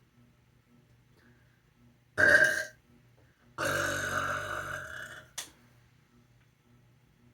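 A person burping twice: a short loud burp about two seconds in, then a longer burp of about a second and a half that trails off, followed by a brief click.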